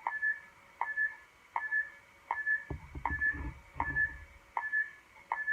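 Tiny speaker in a blaster prop's electronic scope playing a repeating electronic sound effect: a short tick followed by a brief high beep, about every three-quarters of a second.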